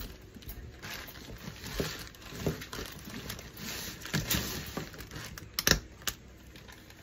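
Thin plastic bag crinkling and rustling as hands handle a cooked mud crab and its string ties, with irregular small clicks and one sharp crack near the end.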